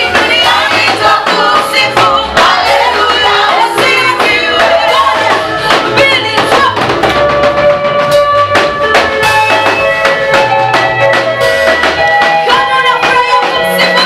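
Live Swahili gospel praise song: a group of mostly female voices singing into microphones over a live band with drums, at a steady upbeat rhythm.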